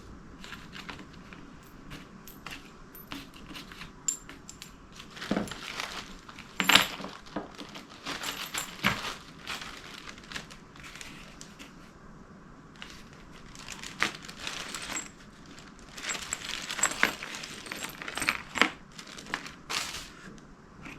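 Hand tools and small metal engine parts clinking and tapping in irregular clicks, the loudest about seven seconds in.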